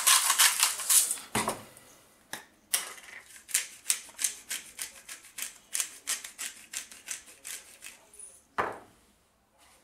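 Hand-twisted pepper grinder grinding pepper: a fast, uneven run of gritty clicks, with a heavier knock about a second and a half in and another near the end.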